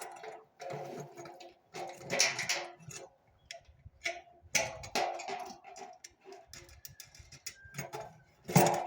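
Metal parts of a satellite dish clinking and knocking as they are handled and fitted together: a run of irregular knocks and ticks, some with a short metallic ring.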